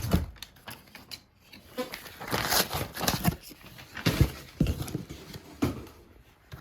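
Packaging being handled while the microphone's box is opened: scattered taps, scrapes and rustles at uneven intervals.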